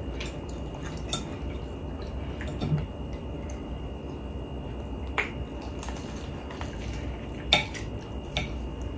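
Eating sounds close to the microphone: chewing, with a few sharp clicks and clinks of cutlery against a dish.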